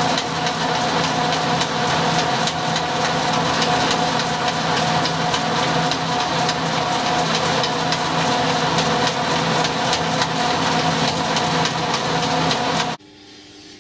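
Colchester lathe running under power, its spindle turning a brass workpiece while a clamp-type knurling tool rolls a knurl onto it: a steady machine sound with several even tones and faint ticking. It stops abruptly near the end.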